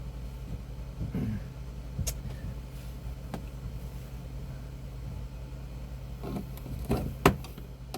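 Interior trim being worked loose by hand: a few sharp clicks and knocks with some rustling, the loudest click near the end, over a steady low hum.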